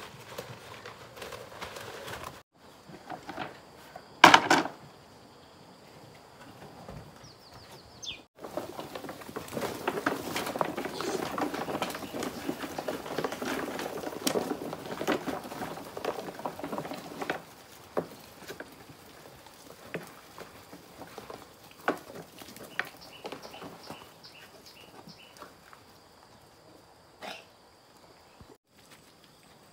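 Pigs feeding and moving about in a pen: a dense crackling of chewing and rustling through the middle, with scattered clicks later. A single loud knock comes about four seconds in.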